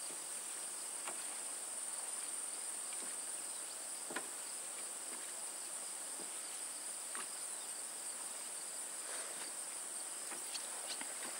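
Steady, high-pitched chorus of insects, with a few faint clicks scattered through it.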